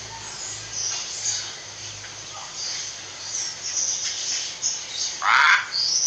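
Common hill myna giving a run of short, high-pitched chirps and squeaks, then one loud, harsh call about five seconds in.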